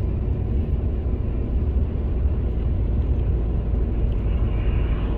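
Steady low rumble of a moving passenger vehicle heard from inside the cabin: running noise from the engine and the wheels on the road or track, with no separate events.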